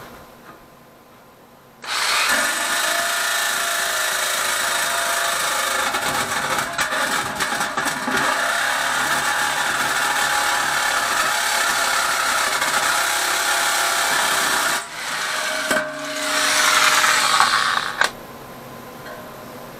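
Electric jigsaw cutting into a lawn tractor's sheet-metal dash panel. It starts about two seconds in and runs steadily for about thirteen seconds, stops briefly, then cuts again for about two seconds before stopping.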